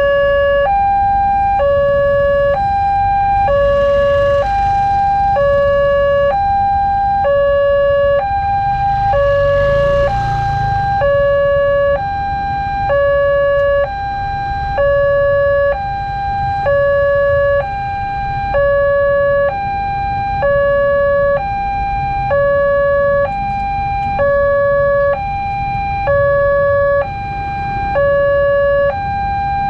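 Railway level-crossing warning alarm sounding with the barriers down and a train due: an electronic two-tone signal, a lower and a higher tone alternating about once a second without a break.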